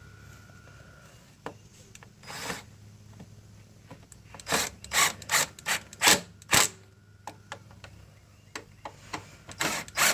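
Hand ratchet tightening the carburetor's 8mm bolts on a 140cc mower engine. It ratchets in short rasping strokes, about two a second, in two runs: one starting about halfway in and another near the end.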